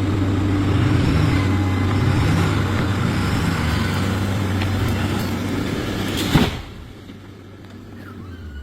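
Vehicle engine running steadily under load as it hauls on a pull line to bring a large tree over, then a single loud crash about six seconds in, after which it is much quieter.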